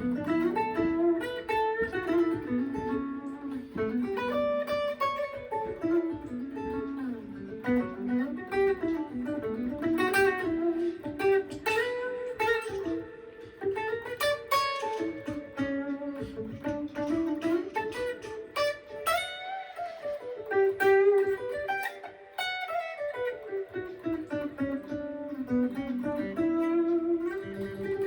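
Gibson ES-335 semi-hollow electric guitar played through an amp on its neck pickup, a T-type humbucker: continuous single-note melodic lines that climb and fall in quick runs.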